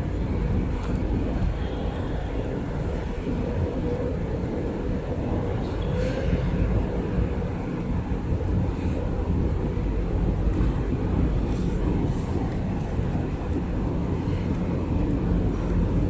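Steady low outdoor rumble, a continuous city-and-traffic ambience without distinct events, with a faint high-pitched chirping line above it.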